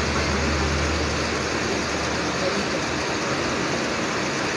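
Steady, fairly loud background noise of a crowded room, with no distinct words. A low hum under it drops away about a second in.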